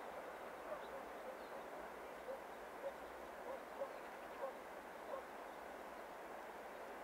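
Faint, distant dog barking: short single barks at an uneven pace, about one a second, over a steady background hiss.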